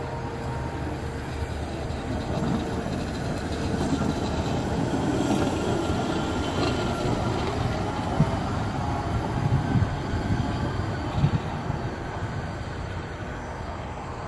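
Hi-rail pickup truck rolling past on the rails, a steady rumble from its engine and wheels on the track that grows as it nears. A few sharp clicks come as it goes by.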